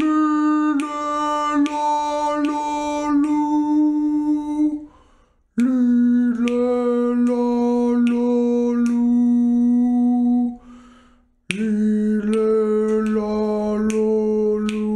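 A man's voice sustaining three long vowel notes of about five seconds each, the first higher and the next two lower, with full, buzzy overtones. These are vocal warm-up tones in the 'monk' exercise, descending from high to low.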